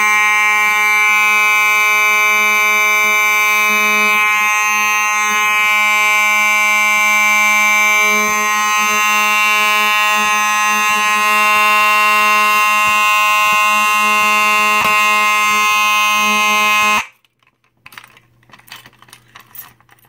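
1997 Simplex 4903-9219 rectangular fire alarm horn sounding one continuous, steady, buzzy tone, set off by a pulled Simplex T-bar pull station. It cuts off abruptly about 17 seconds in, followed by a few faint clicks.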